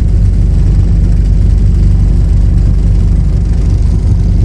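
Canal hire boat's inboard engine running steadily at slow cruising speed, a constant low engine note heard from on board.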